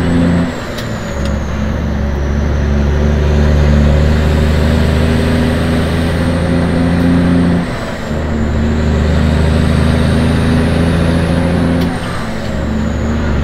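Motor vehicle engine and road noise while driving at speed: a steady low engine drone that dips briefly and changes note three times.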